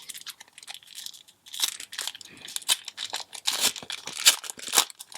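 Crinkling and rustling of a foil booster-pack wrapper being handled and torn open, a busy irregular crackle that grows louder and denser about a second and a half in.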